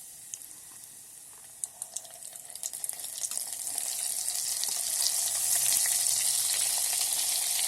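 Boiled sweet corn coated in rice flour and cornstarch frying in hot oil in an electric kettle: scattered pops at first, then sizzling that builds over a couple of seconds to a steady loud hiss.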